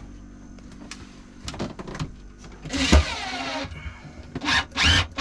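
A small electric motor, as in a power tool, whirring in several short spurts, with a few knocks and taps before them.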